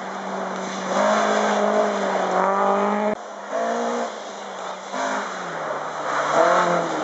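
Historic rally car engines revving hard at full throttle. The pitch climbs and drops repeatedly with gear changes and lifts off the throttle. The sound cuts off abruptly about three seconds in, and a second car is then heard accelerating past.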